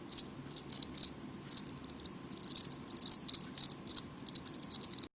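House crickets chirping noisily: short, high-pitched chirps in irregular groups, a few a second at first and coming thicker and faster after about two and a half seconds.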